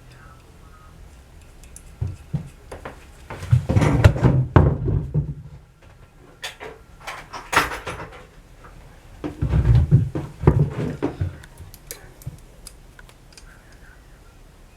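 Irregular knocking and clattering in several bursts, the loudest about four and ten seconds in, like objects being handled and set down on a work surface.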